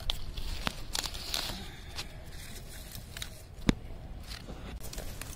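Crisp crackles and sharp clicks of big mustard leaves being gripped and snapped off by hand, with one loud snap about two-thirds of the way through.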